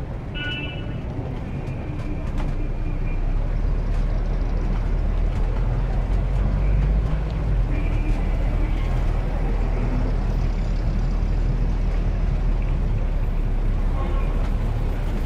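Street traffic: a continuous low rumble of car engines and tyres going by, swelling a couple of seconds in and holding steady, with a brief high toot right at the start.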